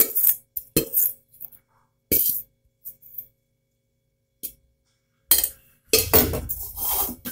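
Stainless steel pan and utensil clinking and scraping against a steel mixer-grinder jar as sautéed tomato, shallots and garlic are tipped in. Scattered clinks with gaps, busier and louder in the last two seconds.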